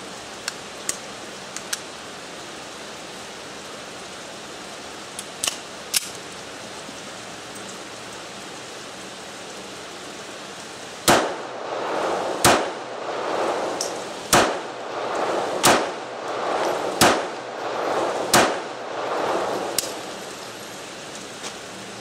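Six shots from a Ruger LCP .380 pocket pistol, fired a little over a second apart in the second half, each followed by a rolling echo. Before them, a few light clicks of the pistol being handled.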